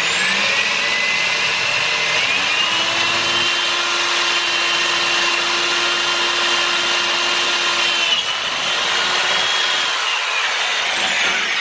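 Electric drill with a 3/16-inch bit running and drilling through a 1/8-inch aluminum bar. Its whine rises in pitch about two seconds in, dips slightly later, and falls away near the end as the drill slows.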